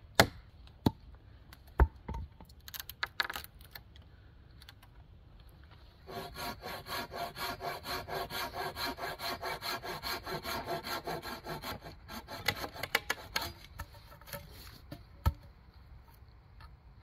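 A few sharp wooden knocks as a knife is batoned through a stick with a wooden baton, then, about six seconds in, a hand saw cutting a wooden pole with quick, even strokes, about five a second, for some six seconds, followed by a few scattered knocks and clicks.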